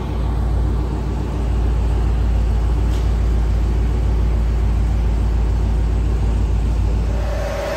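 2023 Camaro LT1's 6.2-litre V8 idling steadily through a Corsa exhaust, a deep, even low rumble.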